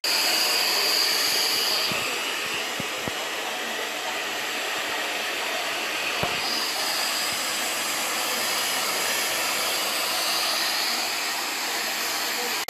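Steady rushing hiss of blown air from a small electric blower. Its higher hiss swells and fades a few times, with a few soft knocks underneath.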